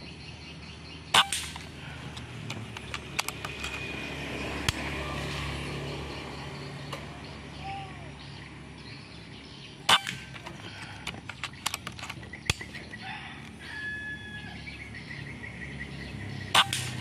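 Bullpup PCP air rifle with a 500 cc air tube firing three shots, about nine and then seven seconds apart, each a sharp crack with a short ring after it. Fainter clicks come between the shots.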